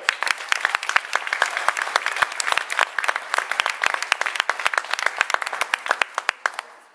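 Audience applauding: many people clapping at once, dense and irregular, dying away near the end.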